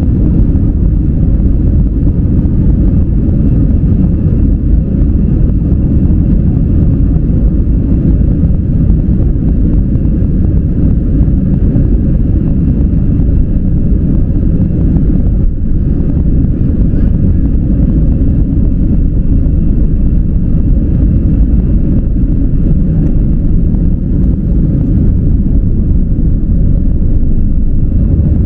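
Airliner engines and airflow heard from inside the cabin during take-off or climb: a loud, steady deep rumble with a faint high whine.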